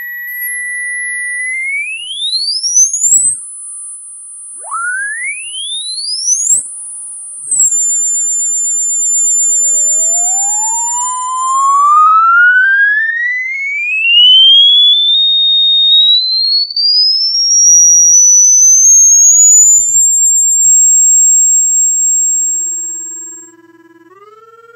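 Electronic rodent-repellent tones: pure whistling tones that glide up in pitch and hold. A tone steady at a middle pitch rises to a high whistle about two seconds in, a second quicker rising sweep follows about five seconds in, then a slow climb from a low pitch to a high steady whistle that fades out near the end.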